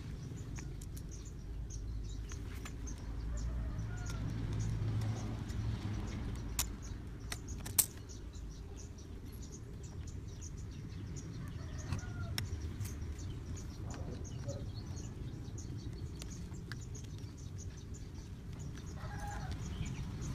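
Light clicks and knocks of PVC pipe and fittings being handled and worked with a hand tool, with one sharp click about eight seconds in. Faint bird chirps over a low steady rumble behind them.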